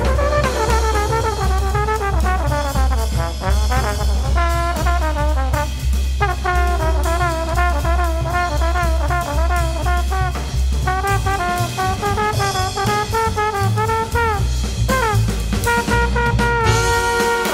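Jazz music: a brass lead melody with sliding, bending notes over bass and drums.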